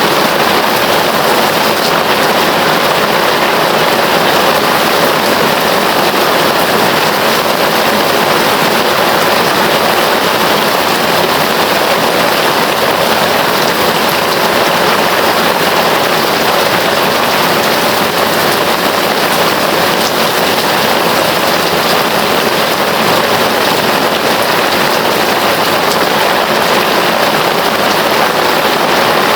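Heavy rain falling in a steady, dense hiss, loud and unchanging.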